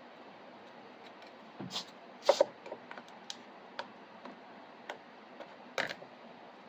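Scattered sharp clicks and light taps of small parts being handled, with a loud double click about two seconds in and another click near the end.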